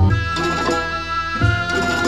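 Instrumental opening theme music of a TV series: a held high melody note over a low accompaniment, with a low drum stroke about one and a half seconds in.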